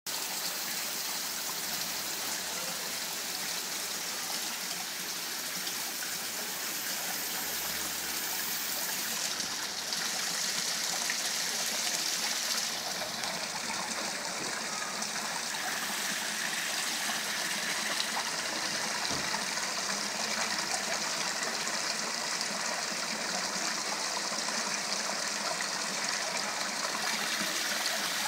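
Steady splashing of an artificial stone waterfall fountain, its thin streams falling over rock ledges into a shallow pool. It gets a little louder about ten seconds in.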